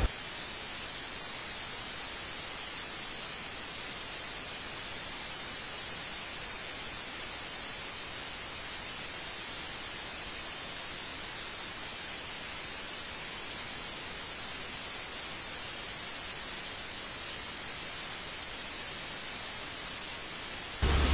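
Steady, even hiss of static, like white noise, with nothing else in it; it cuts in and out abruptly.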